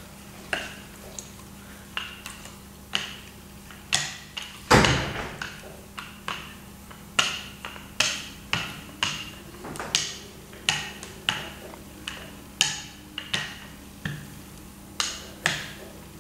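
A hand brayer (rubber roller) worked back and forth over newsprint on a clay slab gives a run of sharp clicks and knocks, about two a second. The heaviest knock comes about five seconds in. A faint steady hum runs underneath.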